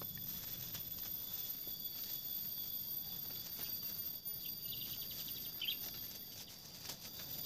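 Quiet outdoor ambience of insects trilling steadily at several high pitches, with faint scattered ticks and a brief chirp a little past the middle.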